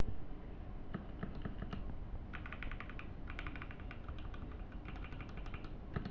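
Typing on a Zifriend T62 60% mechanical keyboard: quick flurries of key clicks, strokes coming in fast runs with short pauses between them.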